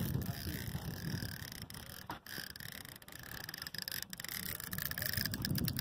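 Wind buffeting the phone's microphone in a low, uneven rumble, with scattered sharp clicks that cluster near the end.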